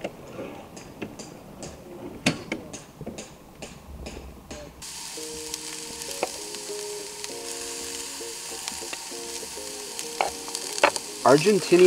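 Knife chopping meat on a wooden cutting board, about three strokes a second. About five seconds in, meat starts sizzling in a hot pan.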